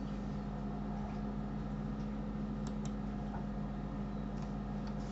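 Steady low electrical hum of room tone, with two faint clicks close together about two and a half seconds in.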